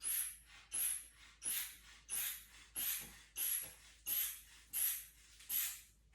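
Manual blood pressure cuff being pumped up with its rubber hand bulb: nine quick squeezes, each a short hiss of air through the bulb's valve, about one every two-thirds of a second.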